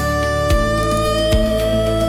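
Background music: held melodic notes over a slow, steady low beat.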